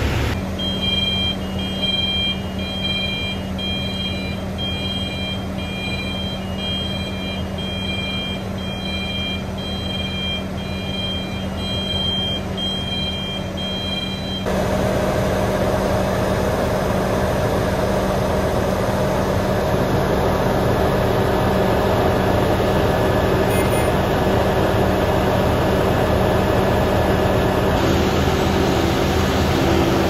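Steady drone of idling heavy engines from tree-service machinery, with a constant low hum. A run of short, evenly spaced high beeps is heard over it in the first half, and the drone gets suddenly louder, with a higher steady hum, about halfway through.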